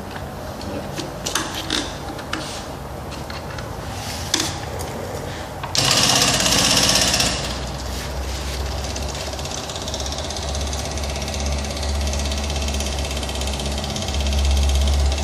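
Small electric pump starting with a loud hiss about six seconds in, then running with a steady low hum and fast rattle as it pushes the coffee-and-water mix through a standard diesel filter and out of the hose. Before it starts there are a few clicks of handling.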